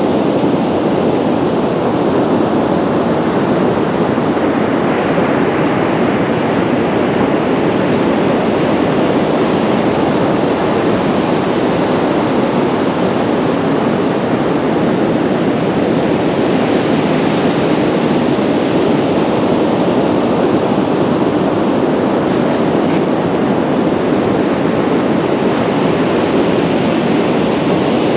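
Heavy surf breaking continuously in rough sea, with wind noise on the microphone; a steady, loud wash with no clear gaps between waves.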